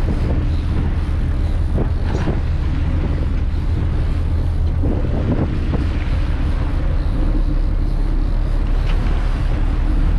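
A fishing boat's engine drones steadily as the boat runs trolling with lines out, with wind buffeting the microphone.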